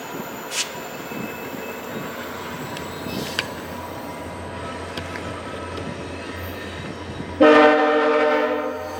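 Passenger train rolling out with a steady rumble, then about seven seconds in the VIA Rail F40PH locomotive's horn sounds one short, loud blast of several notes at once.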